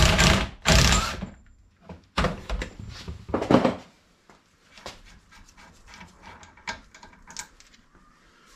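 Ratchet wrench worked in quick strokes, undoing the fastenings on a Mini's front swivel hub so the preload shims can be changed. It goes in two runs, the second about two seconds in, and is followed by faint light clicks of small metal parts being handled.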